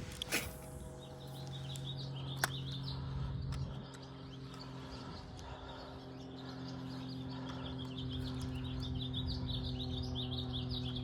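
Small birds chirping rapidly and continuously, busiest in the second half, over a steady low hum. Two sharp clicks come in the first few seconds.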